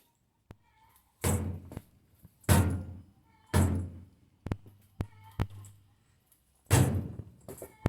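A series of loud thunks, four big ones about a second apart, each ringing out briefly, with a few sharper clicks between them.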